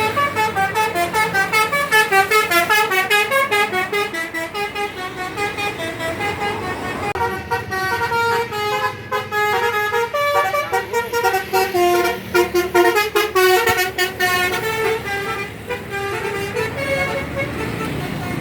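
Tour bus telolet horn (basuri type) playing a fast tune of stepped notes, with a new run of notes starting about seven seconds in and dying away near the end.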